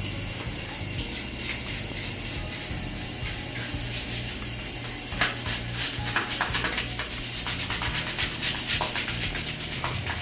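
Background music with a steady hiss over it, joined from about five seconds in by scattered sharp clicks and taps.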